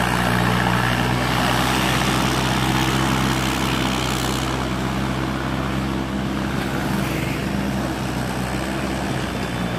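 Diesel farm tractor engine running steadily under load as it tows two heavily loaded sugarcane trolleys past, with tyre and trolley rumble; the higher part of the noise thins after about four seconds as it moves away.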